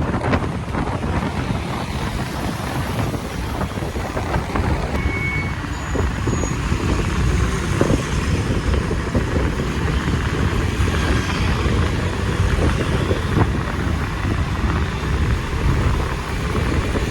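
Steady road-vehicle and traffic noise, dense and loudest in the low end.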